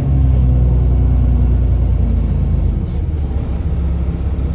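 London bus's diesel engine running, a steady low drone that drops slightly in pitch and level about three seconds in.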